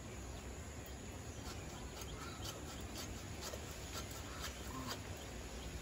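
Faint, scattered clicks of fish being cut on a bonti blade, with a few short calls from farmyard birds in the background.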